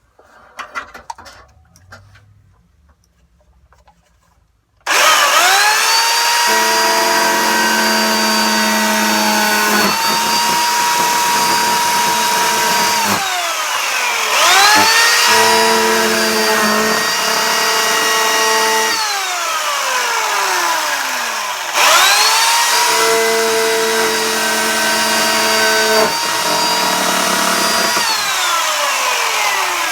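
Small chainsaw cutting into an RV ceiling. Its motor spins up to a steady high whine about five seconds in, then winds down and starts again, three runs in all, as the trigger is pulled and released.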